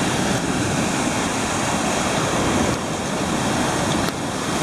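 Surf washing up on a pebble beach, a steady rushing.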